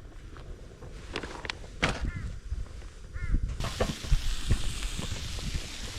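A bird calls twice in short bursts of a few arched, pitched notes, among scattered knocks. Little more than halfway through, a steady hiss sets in suddenly.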